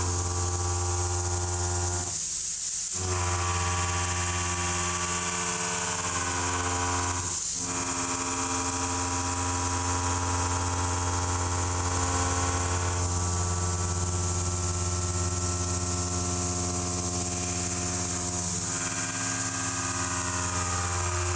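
A 3-inch indexable shell mill with tangential carbide inserts roughing 4140 steel on a CNC mill: a steady cutting hum with a ringing tone of several fixed pitches over a constant high hiss. The sound drops out briefly about two and a half and seven and a half seconds in, and the tone changes slightly after each break.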